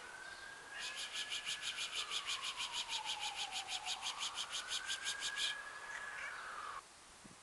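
A person making rapid hissing "pss-pss-pss" calls to coax a cat over, about six a second. Behind it a faint single tone slowly rises and falls, like a distant siren.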